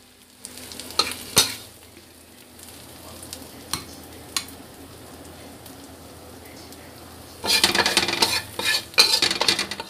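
Metal spatula scraping and clinking against a stainless steel wok of fried salted squid with chili, over a faint sizzle. A few sharp clinks come in the first half, and busy scraping and stirring starts about two-thirds of the way in. The dish is cooked and being scooped out of the wok.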